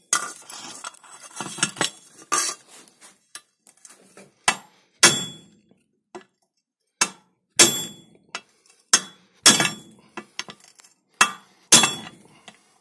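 Hammer striking a cold chisel set against a steel blade on a Zarya rotary mower disc, knocking the blade off its pin: about a dozen sharp metallic clinks at uneven intervals, each ringing briefly.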